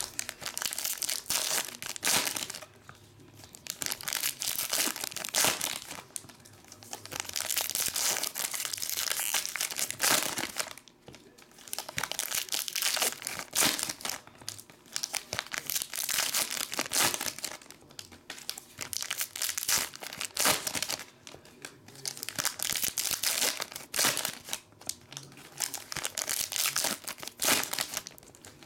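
Foil trading-card pack wrappers crinkling and tearing as packs of basketball cards are opened, in bursts of a few seconds with brief pauses between.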